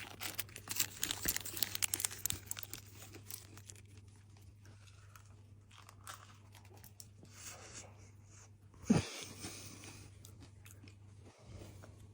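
Close-up crunching and chewing as someone bites into a crispy pastry, loudest and densest in the first few seconds, then softer chewing. There is a brief louder sound about nine seconds in.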